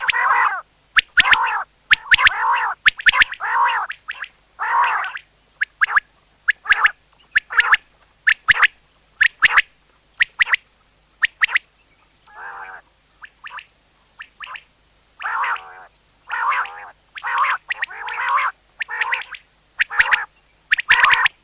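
Common quail calling over and over in quick clusters of short, sharp notes with brief gaps between them. The calls are softer for a couple of seconds around the middle. This is the kind of quail call played to lure quail for a hunt.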